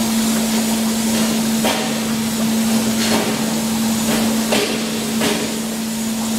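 Paper-pulp moulding production line running: a steady machine hum over a constant hiss, broken by about five sharp knocks at uneven intervals.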